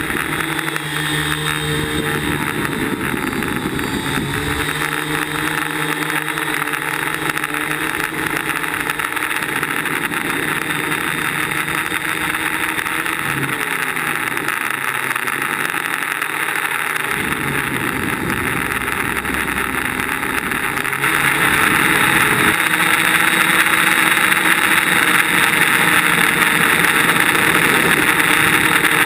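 Electric motors and propellers of a DJI Flame Wheel quadcopter, heard from its onboard camera: a steady whirring rush whose pitch glides up and down as the throttle changes, growing louder about two-thirds of the way in.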